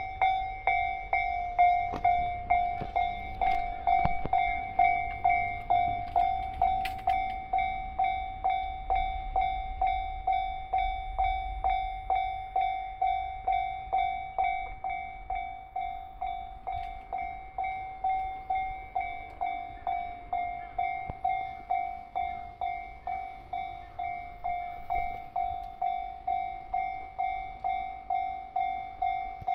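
Japanese level-crossing warning bell starts ringing suddenly and keeps on, a repeating clang about twice a second, warning of an approaching train.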